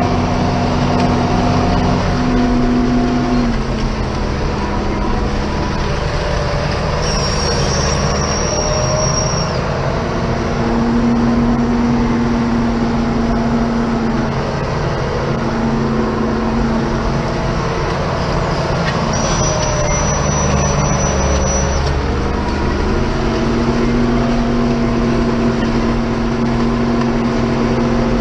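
Ford TW-25 tractor's six-cylinder turbo diesel running steadily under load while pulling a set of discs through rough ground, its note shifting a little as the load changes. A thin high whistle comes in twice, for two or three seconds each time.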